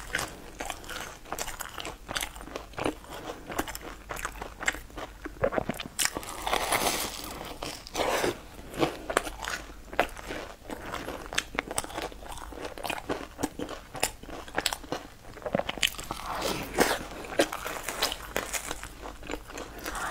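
Close-miked eating: a crusty twisted bread loaf being bitten and chewed, with many sharp, irregular crunches.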